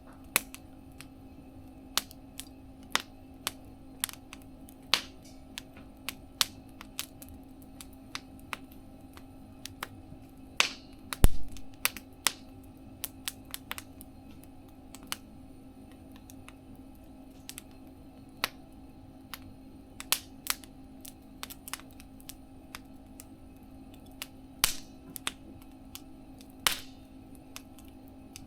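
Campfire crackling in a mesh fire-pit stove: irregular sharp pops and snaps, with a louder pop about eleven seconds in, over a faint steady hum.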